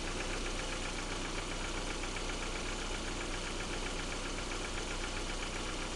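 Lada Priora's 1.6-litre 16-valve VAZ-21126 engine running steadily, likely at idle, with a rapid, regular knock that the owner cannot explain.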